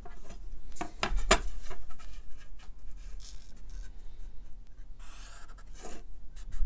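Marker pen scratching across paper in short strokes as straight lines are ruled along a steel ruler. A few sharp taps come about a second in.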